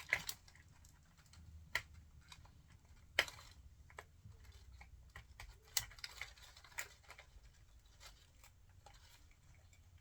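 Irregular clicks and brief crackles of plastic toy packaging being handled and opened, with a sharper crackle about three seconds in.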